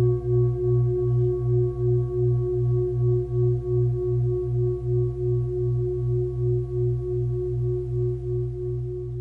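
Singing bowl ringing out in one long, slowly fading tone with an even wavering pulse about two to three times a second.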